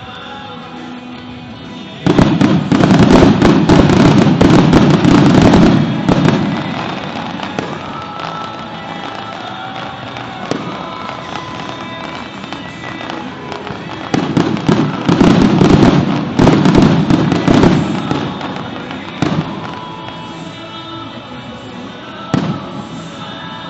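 Fireworks show: two barrages of rapid bangs and crackles, each about four seconds long, with a few single bangs between, over music playing throughout.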